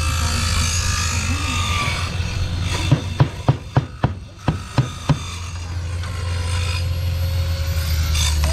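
Hand siding snips working the edge of a vinyl siding panel: a quick run of about nine sharp snaps, roughly four a second, lasting about two seconds, over a steady low rumble.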